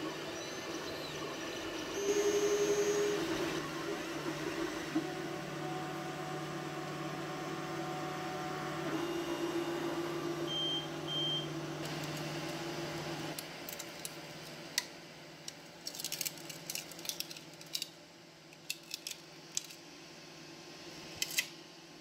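Qidi X-One2 3D printer's stepper motors whirring as the print head moves, with the motor tones stepping in pitch as the moves change and a louder, higher whine about two seconds in. About thirteen seconds in, the motor sound stops and scattered light clicks and taps follow.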